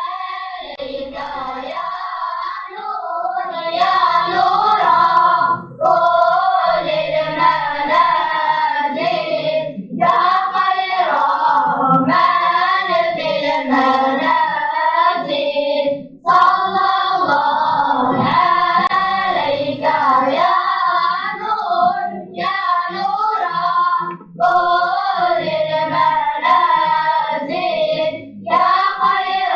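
A group of children singing together in long melodic phrases, with short pauses for breath between lines.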